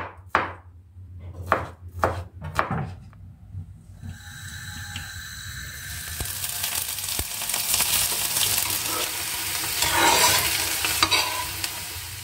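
A few knife chops on a cutting board, then food sizzling in a hot pan from about four seconds in, the sizzle growing louder.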